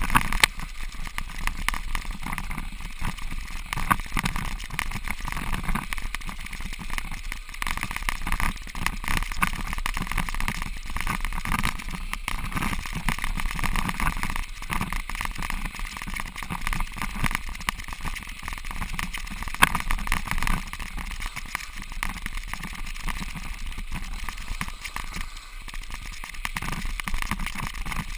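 Bicycle tyres rolling over crusted snow and ice on a frozen lake, a steady gritty noise full of small crackles and clicks. There are sharper knocks now and then, louder about 4 s in and again about 20 s in.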